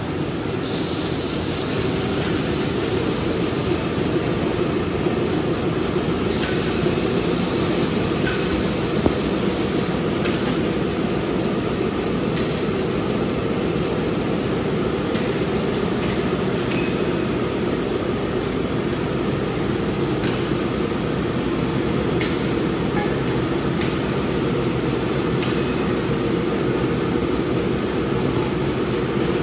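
A maxi-roll toilet paper and kitchen towel production line running: a steady machinery drone, with sharp clicks and clinks at irregular intervals of a second or few.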